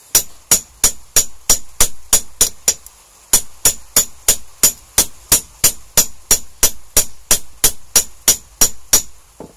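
Hammer beating a welding rod flat on a steel block: a steady run of sharp, ringing metal-on-metal blows, about three a second, with a short pause about three seconds in.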